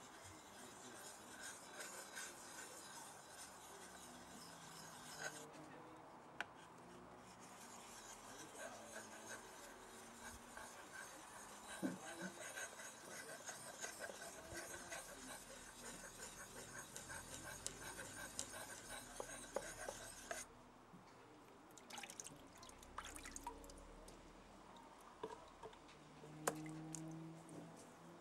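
Knife blade rubbing in small circles on a wet 6000-grit King Japanese water stone, rocked to follow a convex edge: a faint, steady gritty scraping with scattered light ticks, easing off about two-thirds of the way through.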